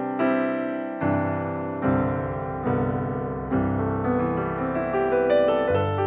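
Background piano music: slow notes and chords struck about once a second, each fading before the next.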